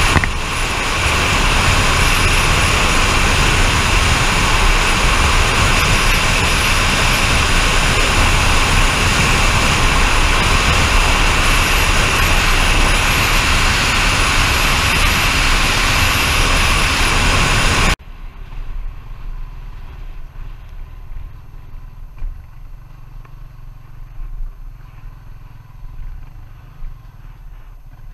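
Steady, loud wind and road noise of a vehicle on the move, dropping suddenly about 18 seconds in to a much quieter low rumble.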